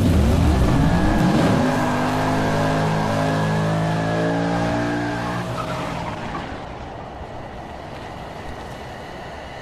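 Car doing a burnout: the engine revs up over the first two seconds and is held high while the spinning tyre squeals, then the sound slowly fades away.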